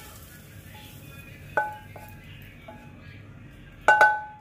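Wooden spatula scraping fried carrots out of a frying pan into a stainless steel mixing bowl: a few light clinks, then two loud metallic knocks in quick succession near the end that ring on briefly as the pan is tapped empty against the bowl.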